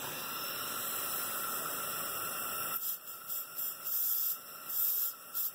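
Steady faint hiss, then from about halfway through, several short spurts of hissing as the rubber tyre valve stem is bent back and forth by hand: air escaping past a leaking, dry-rotted valve stem.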